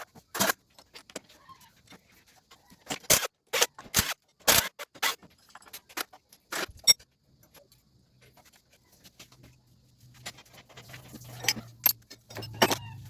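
Metal parts being handled during an automatic transmission teardown, giving a run of sharp clinks and clanks over the first seven seconds. After a quieter stretch, a faint low hum and denser metallic rattling come in near the end.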